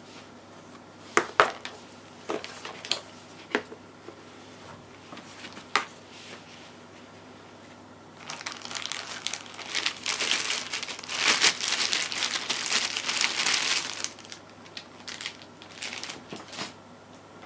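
A hard plastic pistol case clicking open, with two sharp snaps followed by a few lighter knocks. Then a clear plastic bag crinkling for about six seconds as the pistol is unwrapped, with a few light handling clicks near the end.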